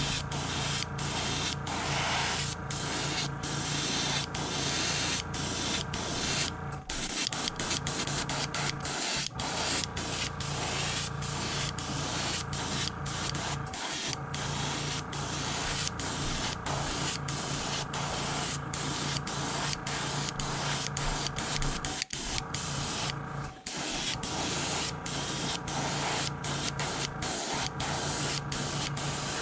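Airbrush hissing as it sprays pearl white paint onto a carved wooden fishing lure, over a steady low hum. The spraying goes in passes, broken by short stops now and then.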